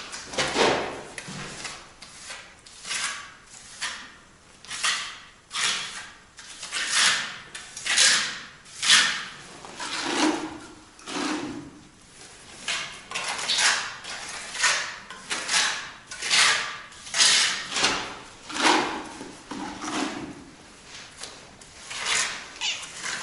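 Repeated scraping strokes, roughly one a second, with a couple of short pauses.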